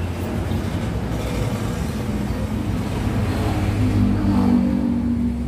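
A steady low engine-like hum, with a stronger droning tone coming in a little past halfway.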